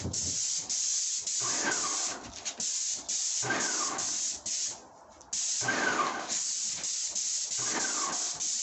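Paint spray gun hissing in long passes, with brief breaks about two and a half and five seconds in where the trigger lets off. A short falling tone recurs about every two seconds under the hiss.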